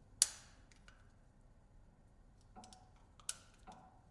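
Sharp metallic clicks and taps of brake pads being fitted into an off-road vehicle's rear brake caliper. The loudest click comes just after the start, then a few smaller ones, with a strong click about three seconds in; some ring briefly.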